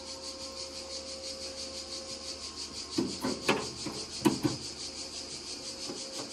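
Hand work on a small sheet-metal patch plate: a few short scrapes and knocks, starting about three seconds in, over a steady high-pitched background.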